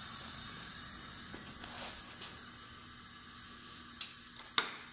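Steady faint hiss with three short, sharp clicks about four seconds in, as hands and tools work on the valve train of a Pontiac 400 V8's cylinder head.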